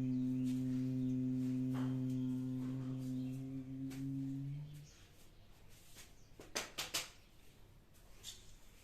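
A man's humming exhalation in bhramari pranayama (bee breath): a steady low 'mmm' held on one pitch for about four and a half seconds, then stopping. A few faint clicks follow about seven seconds in.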